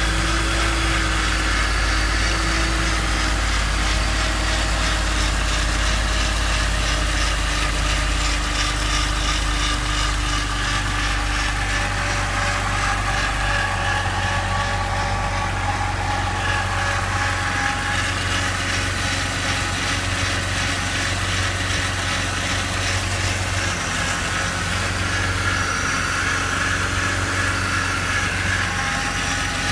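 BMW E46 330i's M54 straight-six engine running steadily, with an unidentified mechanical noise that seems to come from the front of the oil pan; the owner has ruled out the A/C compressor, belts and pulleys, water pump and VANOS. The low hum shifts in pitch about 14 seconds in.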